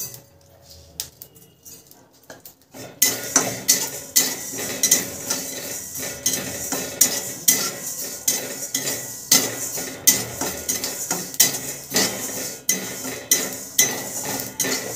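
Flat steel spatula scraping and stirring dry-roasting spice seeds (fenugreek, coriander and cumin) around a metal kadhai, in quick repeated strokes from about three seconds in, the seeds rattling against the pan.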